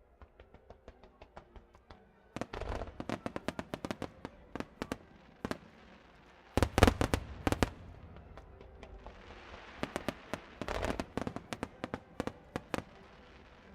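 Fireworks finale: faint distant pops at first, then rapid volleys of shell bursts, about two seconds in and again near the middle, where the bangs are loudest, with a spell of crackling after them and another fast run of bursts toward the end.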